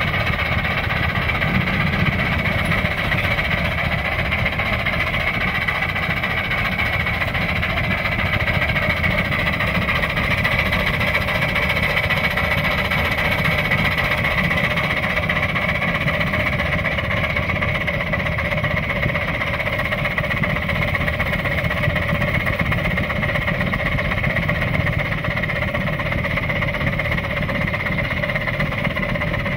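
Oil-fired 9-inch-gauge live steam locomotive running under way with a full train: its exhaust barks steadily along with the running noise of the wheels on the track. A steady high tone runs over it throughout.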